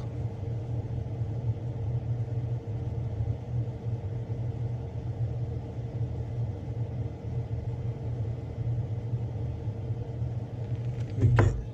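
Steady low machine hum, as of a small motor or fan running, with a single close knock near the end.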